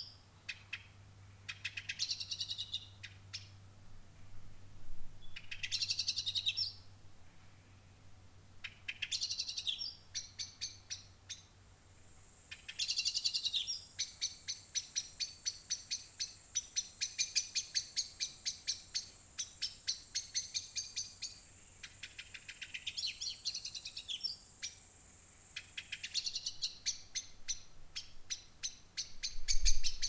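A songbird singing short phrases every two to three seconds, with a long run of quick repeated chirps in the middle. A steady high cricket trill comes in about twelve seconds in and stops a few seconds before the end.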